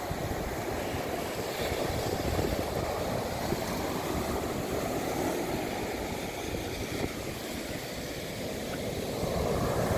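Ocean surf breaking and washing up a sandy beach, swelling and easing, with wind rumbling on the microphone.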